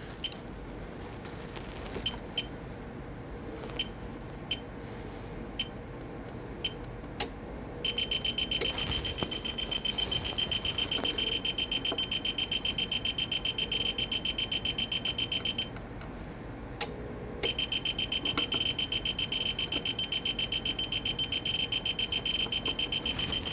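A few faint clicks, then a high-pitched electronic beeper sounding a fast, even train of beeps, like an alarm going off. The beeping breaks off for about two seconds and then starts again.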